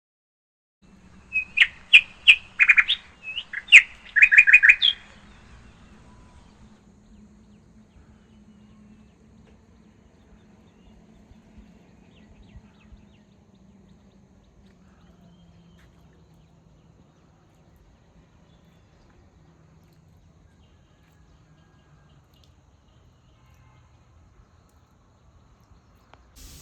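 A bird chirping in a quick string of sharp calls for a few seconds near the start, then only a faint low steady hum with a few soft ticks.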